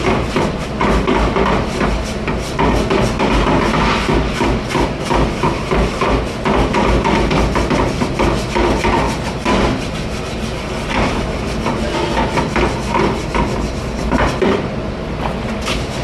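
Dishes and dish racks clattering in a commercial dish room: many quick knocks and clinks over a steady machine hum.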